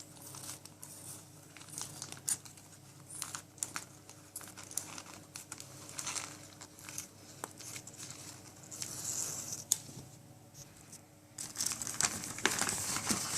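Intermittent crinkling and rustling of wrapping, with some tearing, as the packet holding a vacuum cleaner's instruction manual is opened carefully by hand.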